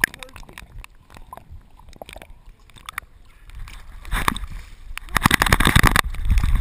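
Pool water sloshing and gurgling against a dog-mounted action camera as the dog swims, with small clicks of water on the housing. From about four seconds in it turns into loud splashing and rubbing noise on the camera as the dog reaches the pool edge and thrashes about.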